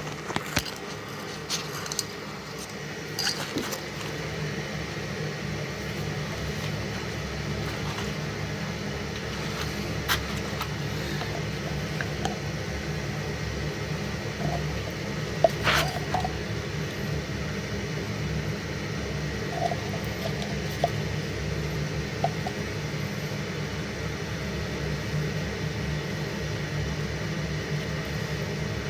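Steady machine hum of a running furnace, with a few scattered clicks and knocks from handling the condensate pipe fittings, the loudest about fifteen seconds in.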